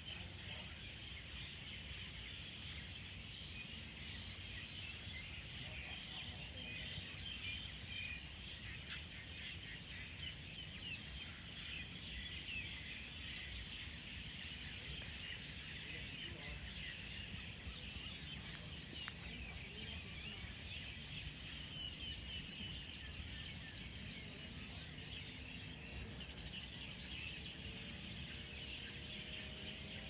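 A dense chorus of many birds chirping at once, continuous throughout, over a low rumble of wind on the microphone.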